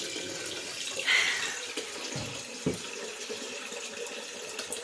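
Water running steadily from a kitchen tap, with a brief clink about a second in and two low knocks a little after two seconds.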